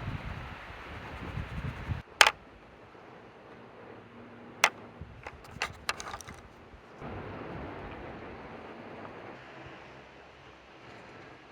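Low rumbling wind gusts on the microphone, with one sharp click about two seconds in and a quick run of lighter clicks and taps around five to six seconds.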